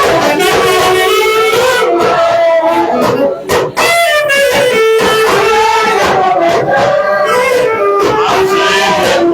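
Music led by guitar, a wavering melody line over percussion strokes.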